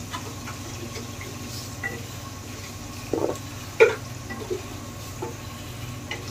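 Potato slices frying in hot oil in a kadhai, the oil bubbling and sizzling steadily, with a few clinks and scrapes of a perforated steel skimmer against the pan, the loudest a little before four seconds in.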